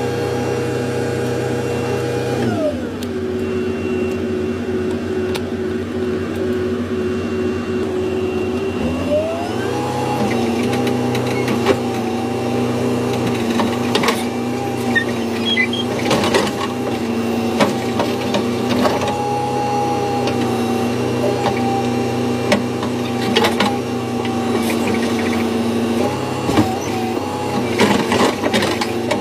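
Backhoe loader's diesel engine running, heard from the operator's cab: the revs drop about two seconds in and rise again around nine seconds as the boom and bucket are worked. From the middle on, scattered knocks and clunks come from the digging.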